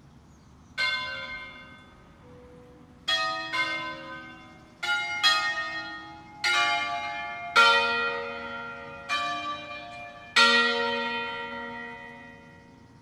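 Five church bells tuned to B♭, C, D, E♭ and F, struck one at a time in an uneven melodic phrase: about nine strokes on different bells, each ringing out and dying away before or under the next. This is the festive 'concerto' way of playing a bell set.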